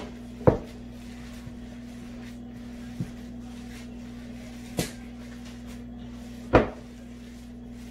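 A glass mixing bowl knocking on a stone countertop three times, with a fainter fourth knock, as a fish patty mix of mackerel, flour and cornmeal is worked in it by hand. A steady low hum runs underneath.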